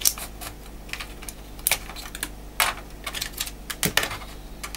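Hard plastic laptop case parts clicking and knocking as they are handled and worked apart: a string of sharp, uneven clicks.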